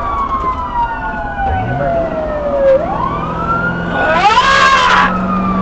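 Several emergency-vehicle sirens wailing at once, their pitches slowly falling and rising, with a louder, harsher rising siren sweep about four seconds in that lasts around a second.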